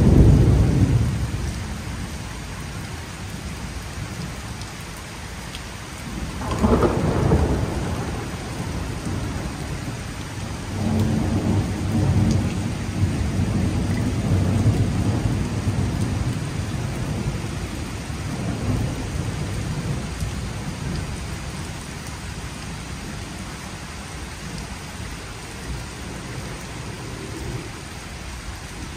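Thunder rumbling over steady rain: one rumble at the start fading within a couple of seconds, another about seven seconds in, and a longer rumble from about eleven to seventeen seconds, then fainter.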